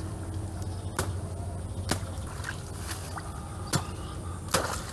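A hand blade striking and chopping into wet mud at the water's edge: several sharp strikes about a second apart, with wet squelching.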